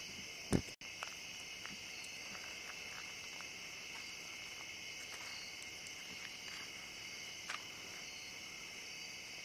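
Night insect chorus of crickets: a steady, high-pitched trilling that never lets up, with a single short knock about half a second in.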